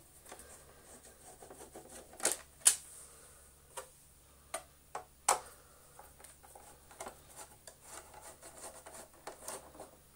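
Hard plastic parts of a Gtech AirRam cordless vacuum being handled and screwed apart: a scatter of sharp clicks and knocks, the loudest in the first half, with faint rubbing and scraping between them.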